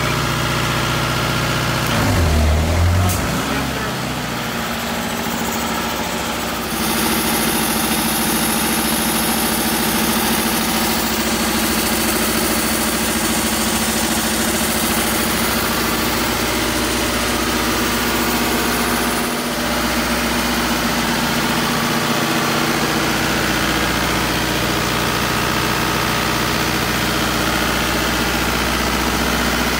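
Diesel generator running steadily, with a brief low surge about two seconds in. About seven seconds in, the belt-driven electric air compressor comes on, adding a steady hum and a few seconds of airy hiss.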